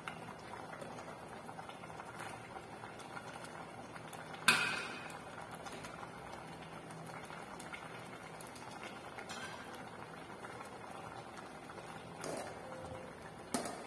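Pot of sardine and spinach soup simmering, a steady low bubbling. One sharp knock sounds about four and a half seconds in.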